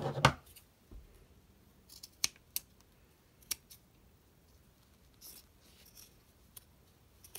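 Steel scissors snipping through T-shirt cotton around the collar: a series of short, separate snips, unevenly spaced, with a louder burst of cutting at the start.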